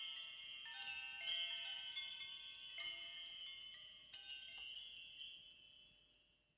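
Wind chimes tinkling: many overlapping high ringing strikes, each dying away slowly, thinning out and fading to silence near the end.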